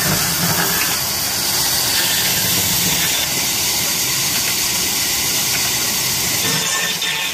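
Old black diesel engine running steadily, driving a wood-cutting band saw through a long flat belt, heard as a steady machine drone under a strong hiss.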